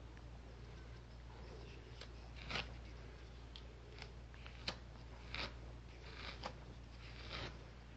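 Quiet background: a steady low hum with a handful of short clicks and rustles scattered through, the sharpest a little under five seconds in.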